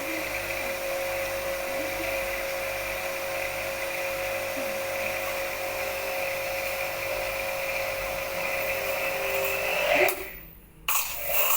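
Orion Super Jet 100-S electric pressure washer running with a steady motor whine and pump hum. The sound cuts out for a moment about ten seconds in, then starts again.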